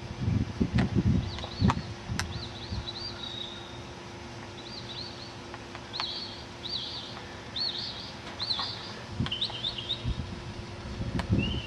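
Small birds chirping: quick runs of short, high, arching chirps that repeat throughout, over a faint steady hum. There is some low rumbling in the first couple of seconds.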